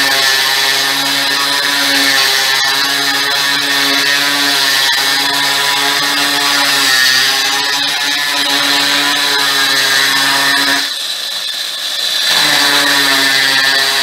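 Electric drill with a hole-cutting punch bit running steadily under load, grinding through a granite countertop. About 11 seconds in the motor lets off, then starts again a second or so later.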